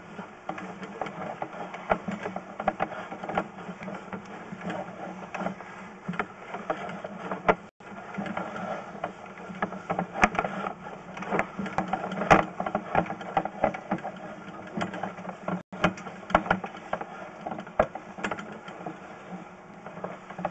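Sewer inspection camera's push cable being fed down the drain line, clicking and rattling irregularly over a steady mechanical hum.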